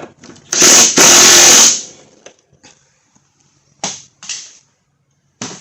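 Impact wrench run in two short bursts, tightening a riding-mower blade bolt. Three short knocks follow near the end.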